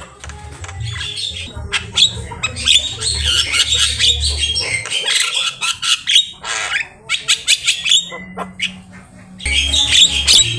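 Javan myna giving a rapid run of harsh squawks, chatters and chirps, over background music with a low bass line that drops out midway and returns near the end.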